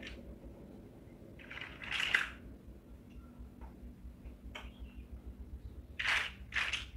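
Plastic building bricks clicking and clattering as they are handled: a burst of clatter with a sharp click about two seconds in as a brick is pressed onto a stack, a few light clicks, then a rattling rummage through a loose pile of bricks near the end.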